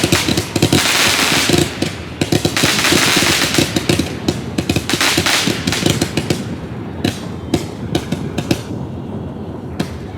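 A ground firework crackling and popping in a dense rapid stream with a hissing spray, thinning to scattered single cracks in the second half.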